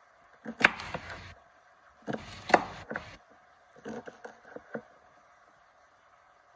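Kitchen knife chopping green beans on a wooden cutting board, in three short runs of quick knocks with pauses between.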